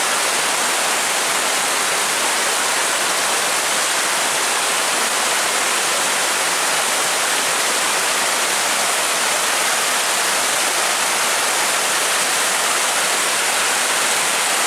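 Muddy floodwater from a sudden heavy downpour rushing and churning in a torrent, foaming around tree trunks. A steady rush of water with no change in strength.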